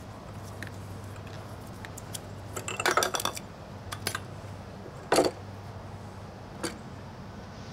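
Metal plumbing parts clinking on brick pavers: a cluster of clinks about three seconds in as a chrome shower fitting is set down, a single sharper clink about two seconds later and a faint one near the end, over a steady low hum.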